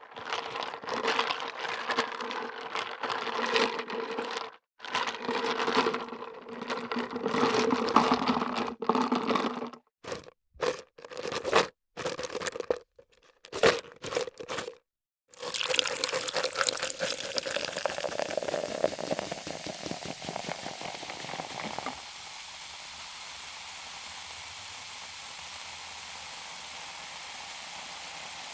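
Liquid pouring into a container, first continuously, then in several short spurts with pauses between. After that comes a fizzing hiss that starts bright, thins out after about six seconds and stays as a steady quieter fizz.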